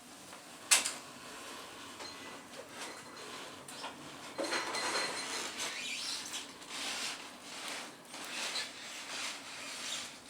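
Wood fire crackling, with one loud sharp pop about a second in, then irregular crackles and short hissing bursts.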